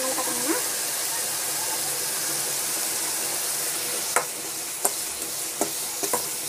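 Chopped onions and curry leaves sizzling steadily in hot oil in a metal kadai as they are sautéed. A steel ladle stirs them, knocking sharply against the pan about five times in the second half.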